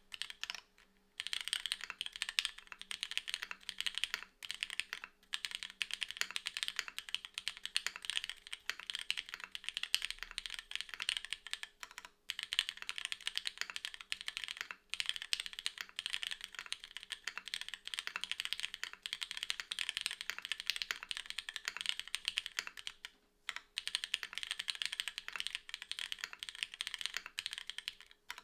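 Continuous fast typing on a JJW Gradient R0 mechanical keyboard with an O-ring-mounted aluminium plate, Cherry MX2A Black linear switches and SP DCS ABS keycaps: dense clacks with a few brief pauses.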